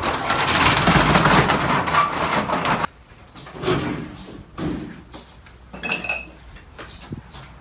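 Corrugated metal roller shutter rattling loudly as it is pulled up by hand, stopping suddenly about three seconds in. Quieter knocks and footsteps follow, with a brief high squeak near the end.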